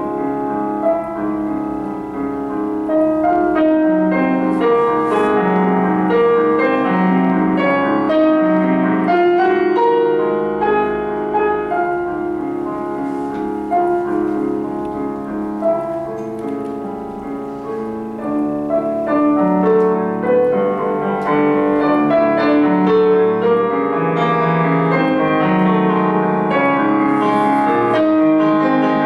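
Solo piano music played on a digital stage piano: a continuous piece of many overlapping notes, briefly softer in the middle and fuller again in the second half.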